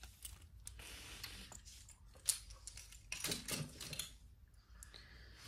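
Costume jewelry being handled: the chunky pendant pieces of a necklace clacking against each other as it is set down, then scattered small clicks and rustles of jewelry being moved on the table.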